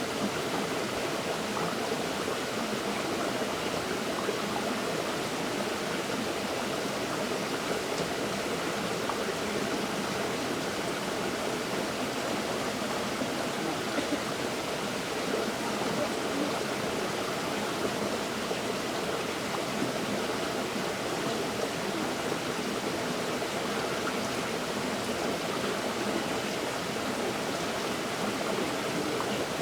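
River water flowing over rocks: a steady rushing babble with small splashes, unchanging throughout.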